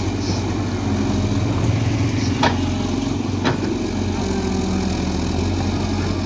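Excavator's diesel engine running steadily, with two sharp clanks about a second apart near the middle.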